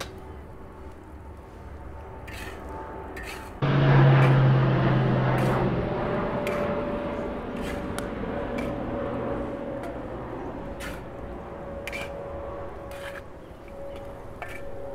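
A metal spatula scraping and clicking against a cast iron wok as a tomato-and-chicken curry is stirred over a wood fire. About three and a half seconds in, a sudden loud sizzling rush starts and slowly dies down.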